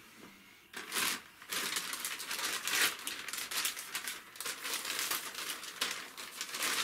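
A small dog chewing and tearing at a paper napkin: a rapid, irregular crinkling crackle that starts about a second in.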